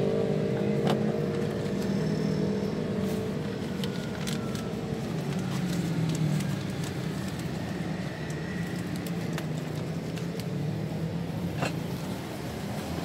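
Steady hum of motor vehicle engines in road traffic, one fading out over the first few seconds, with a few sharp clicks from the food cart.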